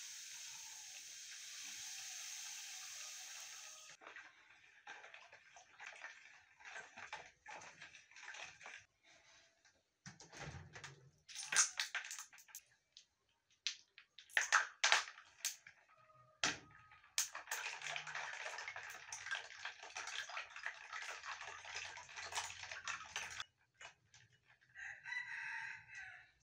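Liquid poured in a steady stream into a plastic bowl of passion fruit juice, then a spoon clinking in the bowl, several sharp clunks as ice cubes are dropped in, and a long stretch of ice cubes rattling as the juice is stirred with a metal spoon. Near the end there is a short pitched call.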